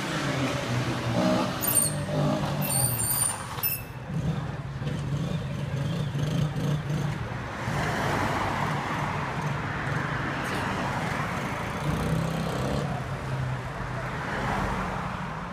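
Dirt bike engines running out on the street, a steady engine hum that swells as the bikes come nearer about halfway through and again near the end.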